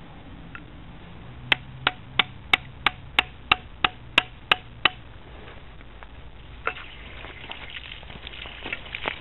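Hammer driving a chisel into the ice crust frozen over a sump pump drain outlet, breaking through the ice that blocks the discharge: about eleven sharp strikes, roughly three a second. Scattered crackling follows in the last few seconds.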